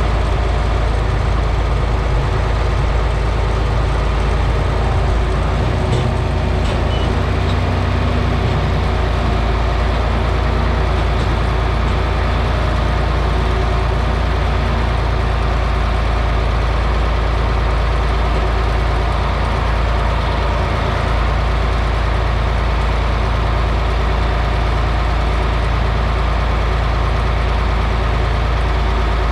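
Old farm tractor engine running steadily, with a deep, even hum, while moving a heavy 500-bushel grain cart.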